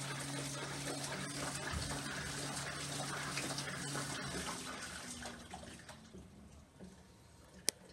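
LG 6.5 kg washing machine filling with water: a steady rush of water with a low hum that cuts off about four seconds in, after which the water sound dies away. A single sharp click comes near the end.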